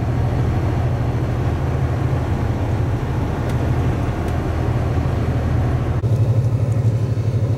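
Steady engine drone and road noise inside a semi-truck cab on the highway. About six seconds in the sound cuts to a steadier engine hum with less hiss.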